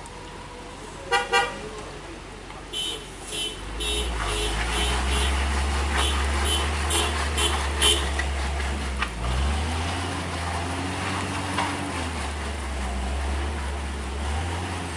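Two short horn toots about a second in, then a run of quick high beeps. A loaded tanker truck's diesel engine drones low under load on a steep climb, revving up and down about nine to twelve seconds in and again near the end.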